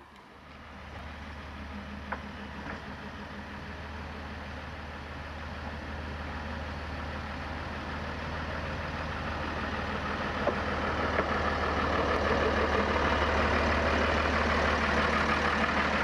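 Engine of a 15-inch-gauge Bo-Bo diesel-hydraulic locomotive running at idle, a steady low hum growing steadily louder, with a few faint clicks.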